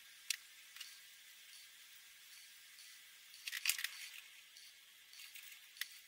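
Faint scratching and dabbing of a felt-tip alcohol marker on paper, with a few sharp clicks. A cluster of clicks and clatter comes about halfway through as the red marker is swapped for a yellow one.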